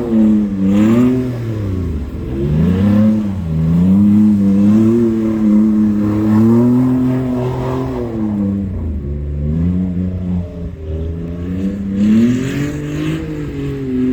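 Car engine revving hard in long swells, its pitch climbing and falling again and again while staying high most of the time. It dips briefly about two seconds in and again around eight to nine seconds.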